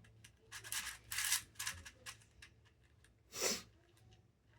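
3D-printed plastic icosahedron twisty puzzle being turned by hand: several short rasping scrapes as its layers grind round, then a louder rush about three and a half seconds in. The puzzle is new and stiff, not yet worn in, so the pieces scrape as they turn.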